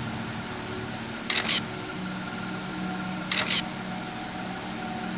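Camera shutter firing twice, about two seconds apart, each a quick double click, over a steady background hum.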